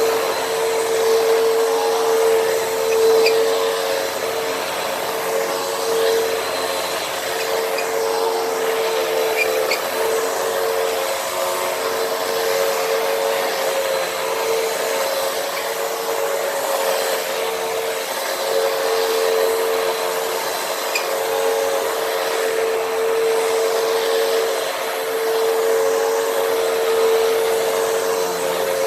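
Hoover WindTunnel upright vacuum cleaner running steadily over a rug, its motor giving a constant whine over the rush of air.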